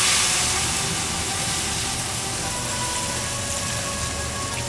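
White wine poured into a hot pan of butter-toasted risotto rice, sizzling loudly as it hits. The sizzle then settles into a steady simmering hiss as the wine starts to evaporate.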